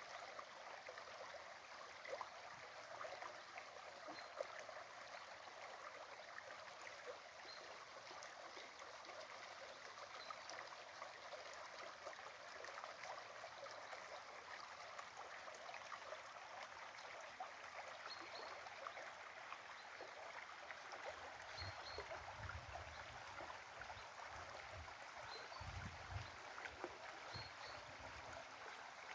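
Small stream trickling and gurgling, faint and steady, with faint high peeps every few seconds and several low thumps near the end.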